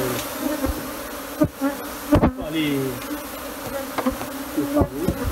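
Swarm of Africanized honeybees buzzing around and close to the microphone, a steady hum with single buzzes sliding down in pitch. A few sharp knocks cut in, about a second and a half, two seconds and near five seconds in.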